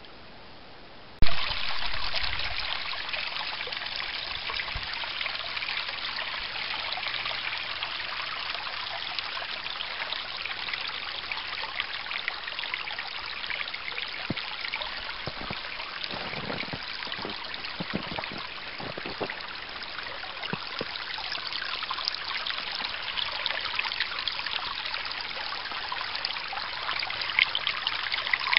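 Shallow rocky creek trickling and babbling over stones, a steady fine hiss of running water that starts abruptly about a second in with a brief knock. A few low bumps come near the middle.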